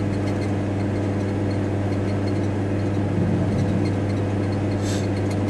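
Steady low hum of a Volkswagen T4 Transporter van running, heard from inside the cab.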